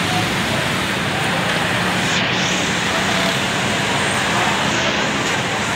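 Steady, even roar of the fire under a giant cauldron of beef broth, with street traffic noise mixed in.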